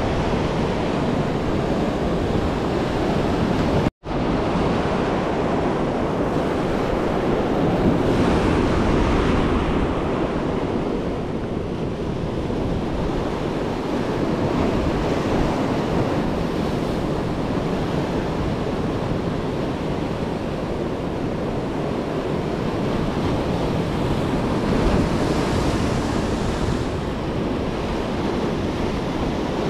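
Ocean surf washing on a beach, a steady rushing noise that swells and eases, with wind buffeting the microphone. The sound drops out completely for an instant about four seconds in.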